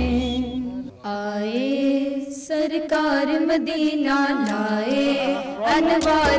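Women singing a naat, an Urdu devotional hymn in praise of the Prophet, with long held notes that glide in pitch. The low backing beat drops out about a second in and comes back near the end.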